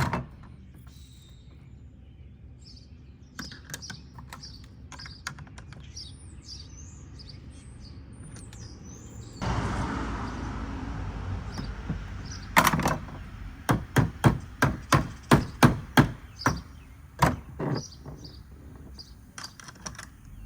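Birds chirping, with a few light clicks of hand work. After the background noise steps up, a run of about ten sharp knocks comes about two a second, then a few lighter clicks.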